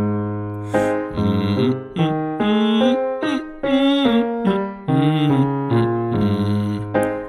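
Vocal exercise example: a singer voices short notes with slides between them over piano chords struck about once a second.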